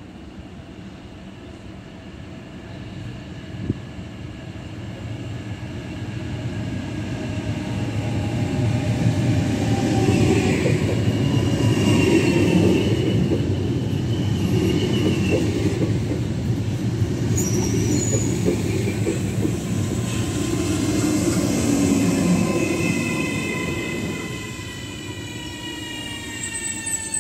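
Trenitalia Rock (ETR 521) double-deck electric train running into the platform: the rumble of wheels on rails builds over several seconds, holds, then eases as the train slows. Falling whines come in near the end as it brakes.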